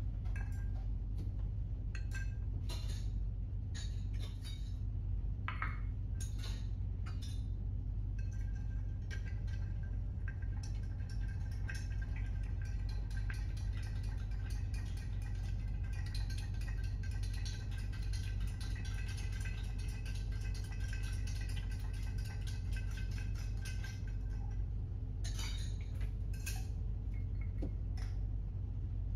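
Ice cubes clicking into a glass mixing glass one at a time, then a bar spoon stirring the ice round in the glass with fast, steady clinking for about fifteen seconds, and a few louder clinks near the end. A steady low hum runs underneath.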